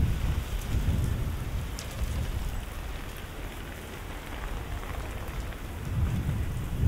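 Heavy rainstorm: a steady hiss of falling rain over a deep rumble that eases in the middle and builds again near the end.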